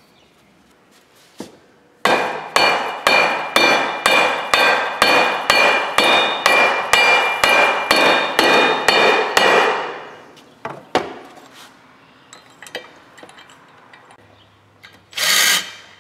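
A mallet tapping a used Polaris primary drive clutch onto an ATV crankshaft: about sixteen even blows, two a second, each leaving a metallic ring from the clutch. Near the end, a short burst from a cordless impact driver on the clutch bolt.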